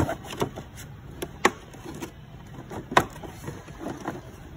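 Handling noise in a metal toolbox drawer: about six scattered sharp clicks and knocks, the loudest about three seconds in, over low steady background noise.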